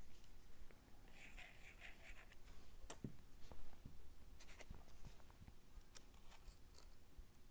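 Faint rustling and light tapping of cardstock pieces being handled, with a short scratchy rustle about a second in and a few soft ticks after it.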